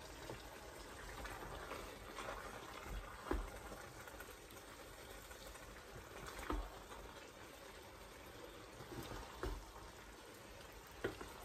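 Wooden spoon scooping thick okra soup from a pot into a ceramic bowl: soft wet scoops and scrapes with a few light knocks of the spoon, over a faint steady hiss.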